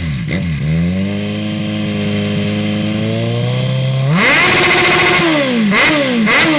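Kawasaki Z1000's inline-four engine revved through a full stainless-steel sports exhaust system. A short blip comes first, then a rev held for about three seconds. About four seconds in it rises sharply, holds, then falls back, and two quick blips follow near the end.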